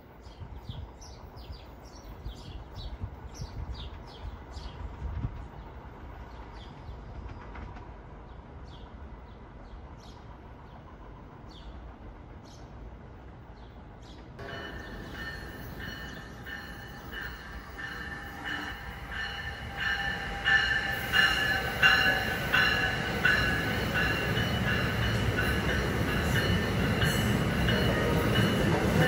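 Birds chirping over a low, distant train rumble; then, from about halfway through, an NJ Transit Multilevel commuter train pulling into the station with a steady high squeal from its wheels and brakes. It grows louder toward the end.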